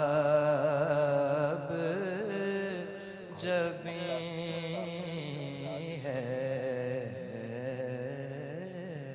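A young man's voice reciting a naat into a microphone, singing long drawn-out, wavering notes with a brief higher swell a few seconds in. The voice grows quieter toward the end.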